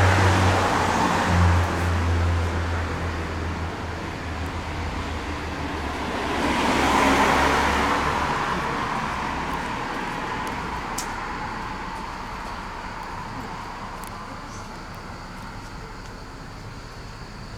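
A motor vehicle's engine running with a low hum, then a vehicle passing by about seven seconds in, its noise swelling and then slowly fading away.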